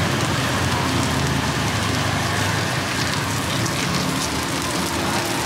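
Takoyaki batter and oil sizzling on a hot takoyaki griddle, a steady crackling hiss, with a low rumble underneath.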